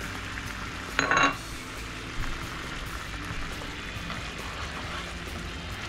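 Tomato and onion sauce simmering and sizzling in a frying pan while a utensil stirs it, with a short ringing clink of the utensil about a second in.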